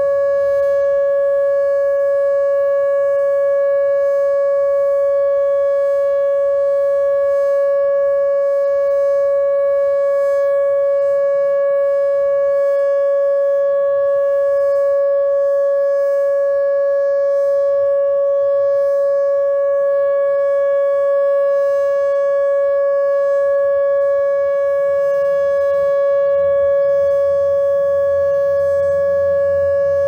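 Whelen OmniAlert OA4 electronic siren sounding a loud steady tone, held at one unchanging pitch.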